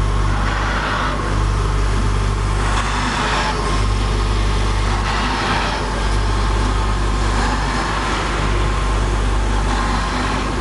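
CNC brake-lining drilling machine running: its two drill motors hum steadily, with a higher rushing noise that swells and fades every couple of seconds.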